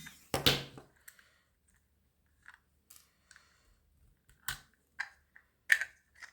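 Scattered small clicks and taps from a screwdriver and the plastic parts of a small security camera being handled during disassembly. There is a heavier knock about half a second in and a sharp click near the end.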